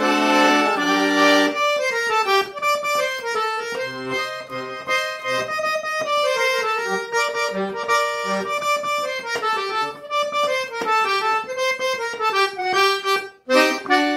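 Sanfona (accordion) playing an instrumental break: a chord held for about a second and a half, then quick running melody lines over short bass notes, with a brief gap just before the end.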